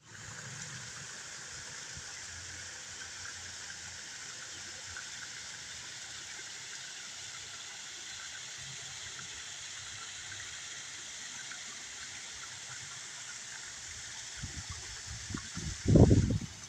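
Steady, even rush of a waterfall. In the last couple of seconds, gusts of strong wind buffet the microphone with loud, irregular low rumbles.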